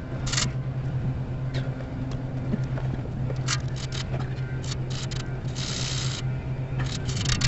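Short, irregular crinkling and scraping of exhaust repair wrap being handled and pressed over a leak on an RV exhaust pipe, over a steady low hum.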